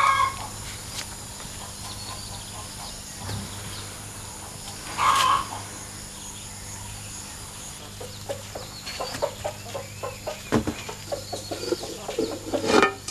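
Chicken clucking: a short call at the start and a louder one about five seconds in. From about two-thirds of the way through comes a run of light clinks and scrapes, dishes handled at a concrete wash basin.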